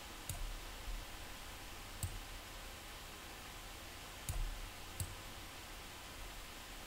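Computer mouse clicking as colour-picker values are adjusted: four short sharp clicks a second or two apart, over a faint steady hiss.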